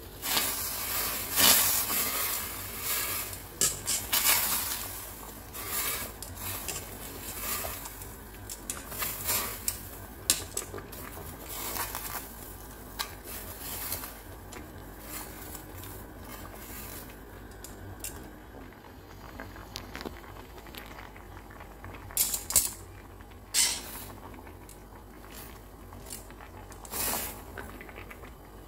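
Metal tongs clinking and scraping against the side of a stainless steel pot while stirring spaghetti in boiling water. Dense, rapid clatter in the first few seconds, then scattered clinks, with a few sharp knocks near the end.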